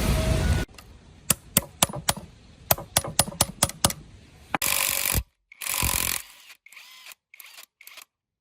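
Workshop tool sounds: a loud steady machine noise cuts off abruptly under a second in, followed by a string of sharp metallic clicks and taps. Two short power-tool bursts of about half a second each come around the middle, then a few more clicks.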